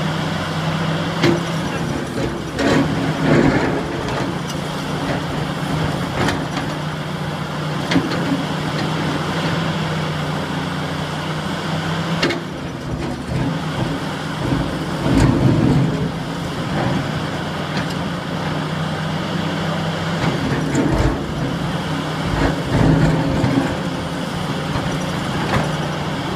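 SANY 70-tonne mining excavator's diesel engine running steadily under load, with irregular clanks and heavier surges from the working machine every few seconds.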